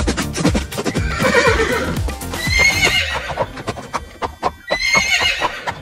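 A horse whinnying, two quavering high calls about two and a half seconds in and again near the end, over background music with a steady beat.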